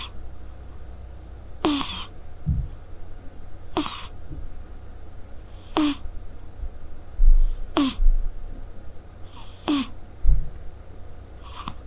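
A Scottish Straight cat snoring in its sleep: a short breathy snore about every two seconds, seven in all. A few low thumps come between them, the loudest about seven and ten seconds in.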